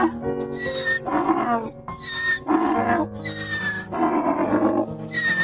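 Donkey braying, a repeated hee-haw: high wheezy notes alternating with lower harsh ones, about four cycles, over background music.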